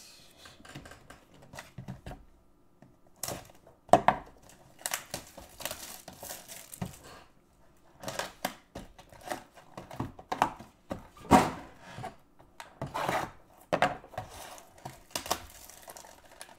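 A 2019 Topps Finest cardboard box and its packs being opened and handled: irregular tearing and crinkling of packaging, with scattered sharp clicks and knocks, the sharpest about four seconds in.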